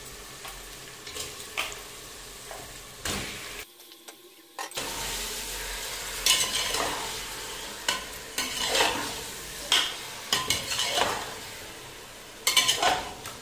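Raw mutton pieces sizzling in hot oil and fried onions in a pressure cooker while being browned, stirred with a perforated steel spatula that scrapes and clinks against the pot many times. The sizzle dips briefly about four seconds in and is louder after it.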